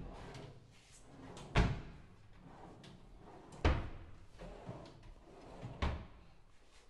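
Kitchen cabinet drawers being pulled open and pushed shut by hand, with three sharp knocks about two seconds apart as they close.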